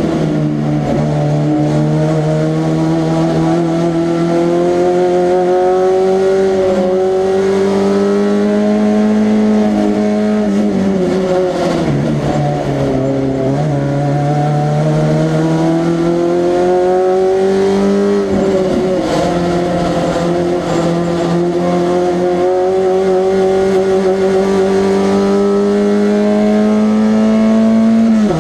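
Small-displacement race car engine of the 1300 class running hard through a lap, its pitch climbing slowly under power and falling away as it lifts and changes gear, with clear drops about 11 and 18 seconds in before it pulls up again.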